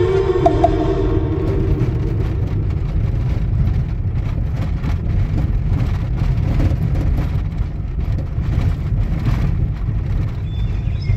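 Car cabin noise while driving on a rough, dusty road: a steady low rumble of tyres and engine, with scattered faint clicks. A music track fades out in the first second or two.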